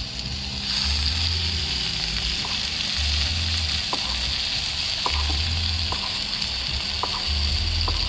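Meat, green peppers and tomatoes sizzling on a hot cast-iron grill pan: a steady hiss that gets louder about a second in, with a few light clicks.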